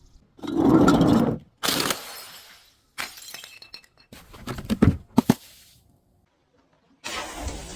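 Glass bottles breaking and shattering, five separate breaks in a row, each starting suddenly and trailing off, with a few sharp cracks about five seconds in.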